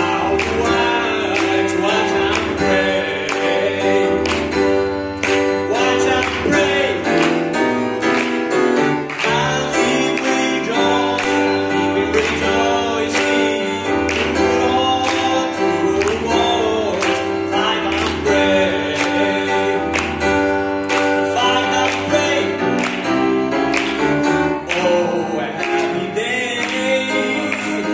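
A singer performing a song with grand piano accompaniment, over a steady beat of about two strokes a second.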